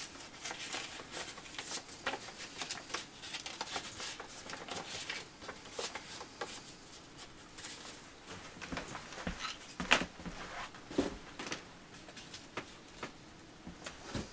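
Irregular rustling and handling noises of paper and plastic kit packaging, with scattered light clicks and a sharper knock about ten seconds in.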